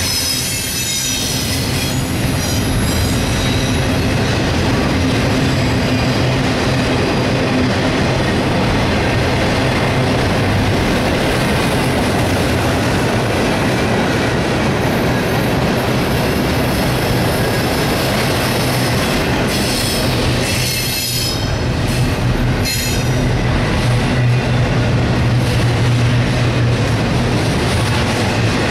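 CSX intermodal freight train's double-stack cars rolling past close by: a steady, loud clatter and roar of steel wheels on rail, with thin high-pitched wheel squeal in the first few seconds and again about two-thirds of the way through.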